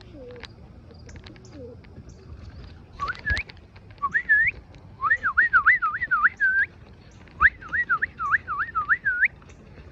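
Whistling: four phrases of clear swooping notes, each dipping and rising several times a second and ending on a rising note, over about the second half. A single sharp knock comes just after the first phrase starts.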